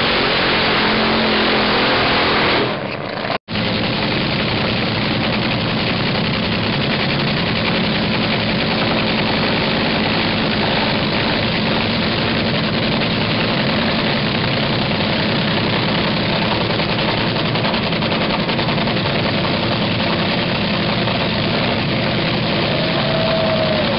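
Dragster's engine running at a steady idle, loud and unbroken apart from a momentary dropout about three seconds in.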